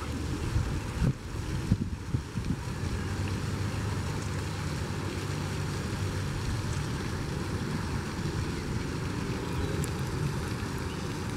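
Wind buffeting the camera's microphone: a steady low rumble with a few short knocks in the first two seconds.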